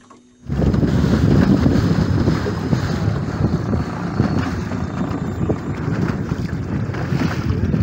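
Strong wind buffeting the microphone, with water rushing past the hull of a boat under way on choppy water; it starts abruptly about half a second in.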